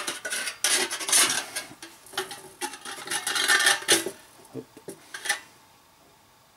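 A thin ribbed tin can scraping and rattling against the thin metal of a beer keg's top as it is pushed and turned in the hole cut there, in irregular bursts for about four seconds, ending with two light taps about five seconds in.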